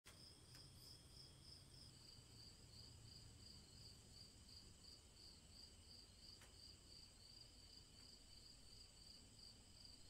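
Crickets chirping faintly: an even, high-pitched pulse repeating about three times a second.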